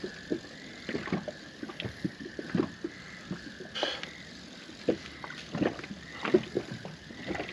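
Spinning reel being cranked to wind in a fish on the line, with irregular soft clicks and knocks.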